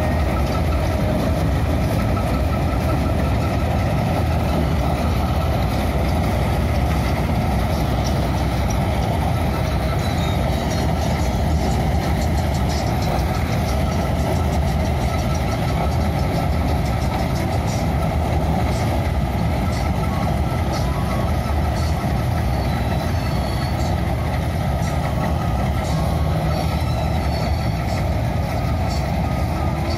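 Corn harvester at work in a maize field, its diesel engine running at a steady, unbroken drone.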